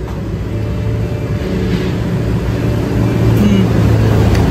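Street traffic: a motor vehicle's engine running with a steady low hum that gets louder about three seconds in.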